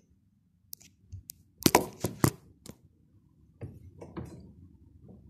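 Handling noise from the recording phone being set in place: a few faint ticks, then a cluster of sharp clicks and knocks about two seconds in, and a few softer knocks near the end.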